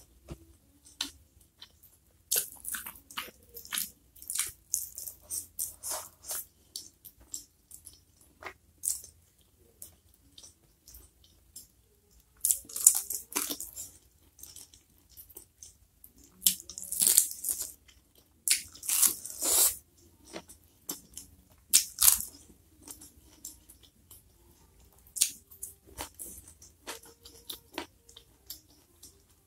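Close-miked eating by hand: wet chewing and lip smacking of spicy food and pineapple chunks, in irregular bursts with short sharp clicks between. The loudest bursts come about halfway through and again around two-thirds of the way in.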